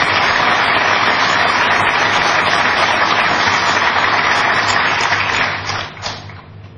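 Audience applauding, a steady dense clapping that dies away about five to six seconds in, with a few last claps.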